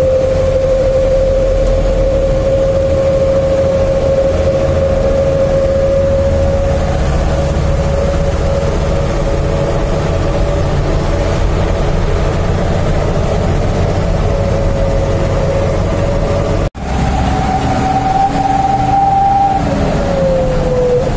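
Wolf-howl whistle exhaust (knalpot srigala) on a trailer truck's diesel engine, giving a steady howling tone over the engine's low rumble while the truck drives. The tone creeps slowly up in pitch. After a brief dropout about three-quarters through, it sits higher, then slides down near the end as the engine eases off.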